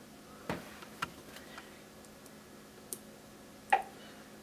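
A handful of light, separate clicks and taps, about five spread out, the last one the loudest. They come from the plastic embroidery hoop being handled and from presses on the embroidery machine's touchscreen.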